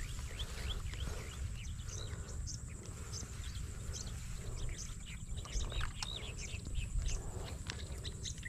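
Birds chirping outdoors: many short, high, arched chirps repeating through the stretch, over a steady low rumble and a faint thin high tone.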